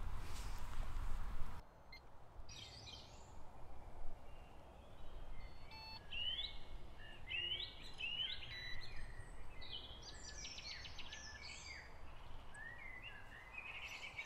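Songbirds calling at dawn: repeated short rising chirps and trills, several birds overlapping, after a low rumble that cuts off about a second and a half in.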